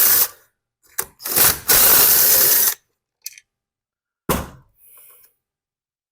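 Power drill-driver running in short runs, backing screws out of a leaf blower's plastic housing: a brief burst at the start, a short one about a second in, and a longer steady run until nearly three seconds in. A single knock follows a bit past four seconds.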